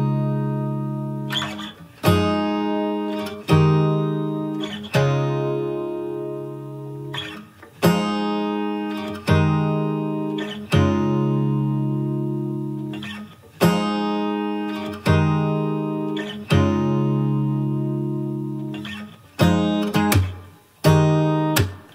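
Background music: acoustic guitar playing chords that start sharply and ring out, a new chord every second or two.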